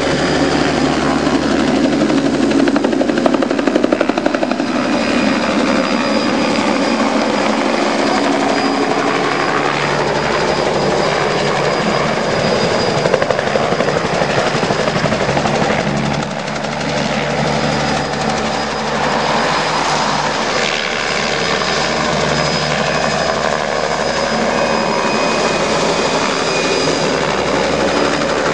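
Turbine-powered Hiller helicopter flying low overhead and past: steady rotor and engine noise with a thin, high turbine whine.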